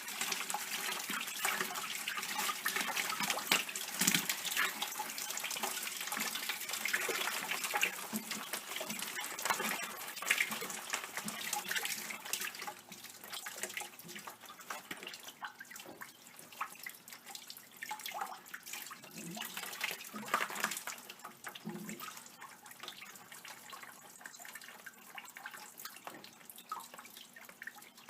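Water draining out of the opened water pressure regulator and house plumbing, splashing steadily, then thinning out after about twelve seconds toward dripping: the last water left in the depressurized pipes running out.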